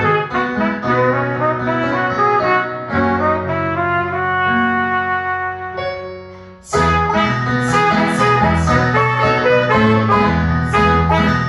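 Cornet playing a melody over a karaoke backing track with piano and bass. The music thins out and fades toward six seconds in, then comes back in abruptly just before seven seconds with a steady beat of about two a second.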